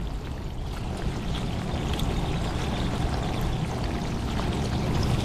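Steady rush of moving seawater, sloshing and trickling, over a low rumble.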